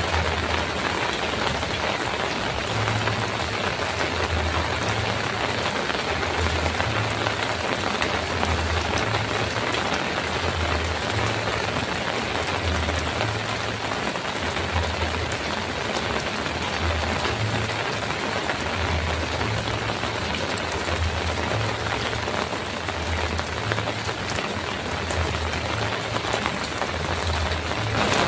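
Heavy rain drumming steadily on a metal roof, with a low hum pulsing about once a second underneath.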